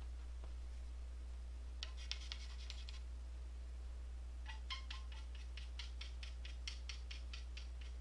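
A brief cluster of light clicks, then a steady run of about a dozen light clicks at roughly four a second, over a low steady hum.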